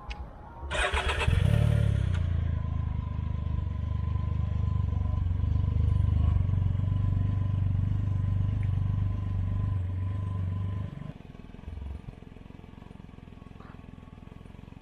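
A Can-Am Ryker three-wheeler's Rotax engine cranks and catches about a second in, idles steadily through an aftermarket or stock exhaust, then is switched off abruptly near the end.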